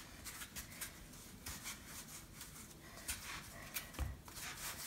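Hands rolling and pressing soft dough on a floured wooden cutting board: faint, irregular brushing and rubbing strokes, with a soft knock on the board near the end.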